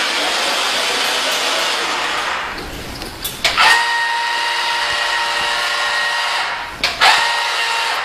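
Small electric motors and plastic gearboxes of a remote-control toy forklift whirring in two stretches, with clicks between them. The second stretch, a steadier whine with a clear pitch, comes as the forks are raised.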